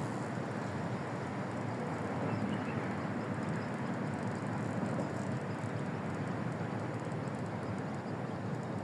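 Fishing reel being wound steadily to bring in a hooked fish, a continuous fast rattling whir.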